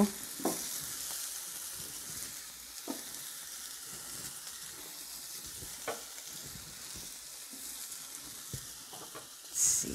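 Steak and vegetables sizzling on the hot ceramic glass surface of a Char-B-Que electric indoor grill: a steady hiss with a few sharp crackles.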